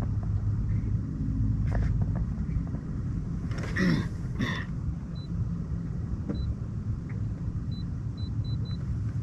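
Steady low rumble on a bass boat, with a few brief knocks and rustles about four seconds in and a few faint short high beeps in the second half.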